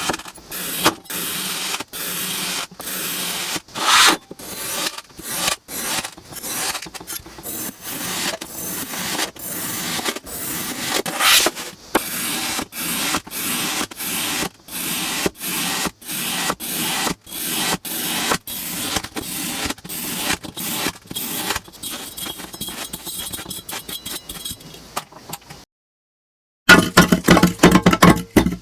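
Kinetic sand being cut and scraped with a tool, in quick repeated crisp, crunchy strokes about two a second. The strokes stop for about a second near the end, then louder ones follow.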